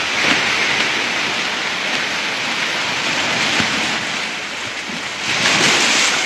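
Sea waves breaking and washing over a rocky shore. The surf surges loudest at the start and again about five seconds in.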